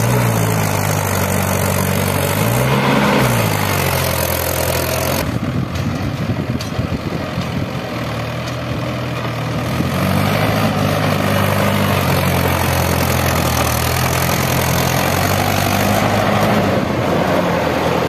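Heavy diesel machinery engine running steadily, with a brief rev about three seconds in and the note rising again later on.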